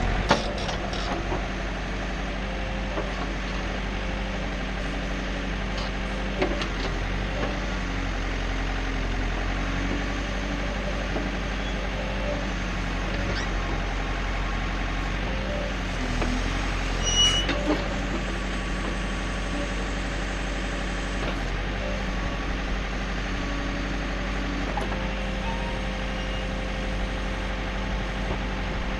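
John Deere 110 backhoe's diesel engine running steadily, with a few scattered knocks and a brief squeal a little past halfway.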